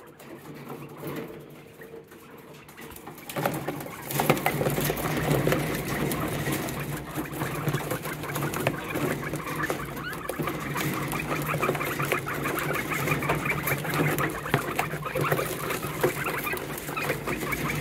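A group of Coturnix quail crowding a feed dish and eating: rapid, dense pecking at the grain, with bird calls. It starts about three seconds in.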